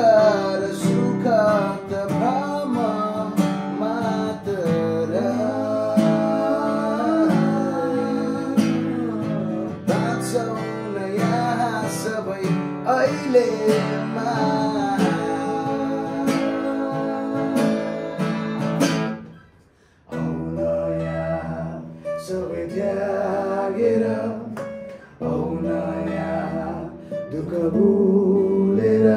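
Acoustic guitar strummed in steady chords with men singing along, an unplugged performance of a song. The music stops briefly a little after two-thirds of the way through, then the guitar and singing pick up again.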